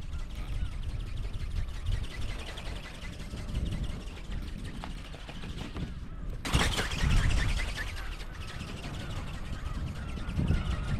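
Strong wind buffeting the microphone in a steady low rumble, with small birds chirping throughout. A stronger gust comes about six and a half seconds in.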